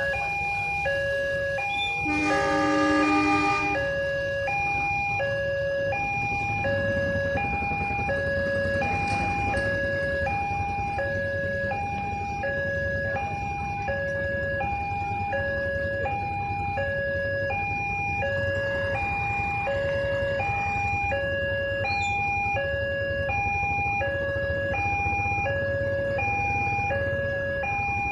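Railway level-crossing warning siren sounding its electronic two-tone alarm, switching steadily between a higher and a lower tone, which signals that a train is approaching. About two seconds in, a horn blares for a second and a half over it, and a low engine rumble runs underneath from about six seconds in.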